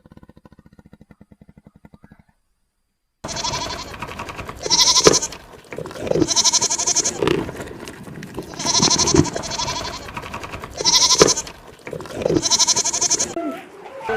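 A series of loud animal calls, about five strong ones spaced a second or two apart, after a brief pause. They are preceded by faint rapid buzzy pulsing.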